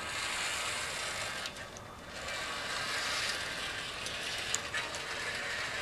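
Panel-track blind's wheeled gliders, four per panel, rolling along the track as the panel is drawn across by its wand. This four-glider build is meant to cut the noise. A continuous rolling rattle, with a brief lull about one and a half seconds in and a couple of sharp clicks near the end.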